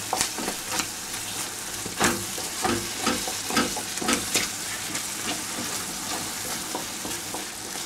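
Wooden spatula stirring and scraping through a thick cream-and-cheese sauce with morels in a cast-iron frying pan, over a steady sizzle from the simmering pan. The scraping strokes are strongest in the first half and grow fainter toward the end.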